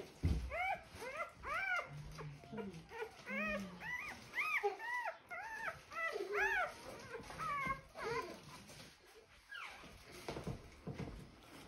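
Four-day-old German shorthaired pointer puppy crying: a run of short, high squeals, each rising and falling in pitch, about two a second, then thinning out and fading near the end.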